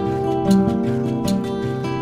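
Instrumental background music: a plucked-string melody over held tones with a steady light beat.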